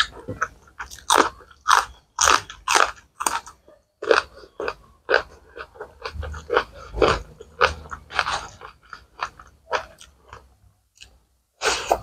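Close-miked mouth sounds of eating rice and curry by hand: crisp crunching bites and chewing, about two or three bites a second.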